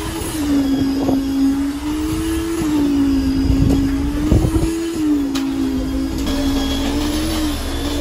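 A motor running with a steady hum that sags and rises in pitch as its load changes, over scattered knocks and clatter.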